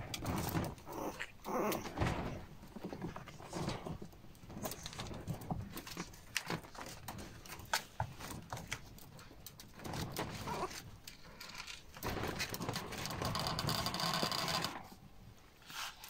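Prague Ratter puppies play-fighting: scuffling, many small knocks and clicks, and a longer stretch of rustling about three-quarters of the way through.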